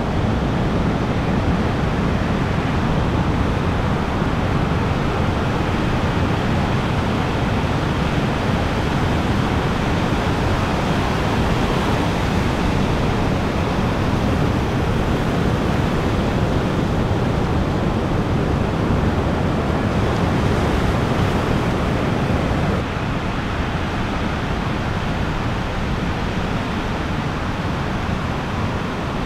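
Ocean surf breaking and washing in a steady rush, with wind buffeting the microphone. The sound drops a little in loudness about two thirds of the way through.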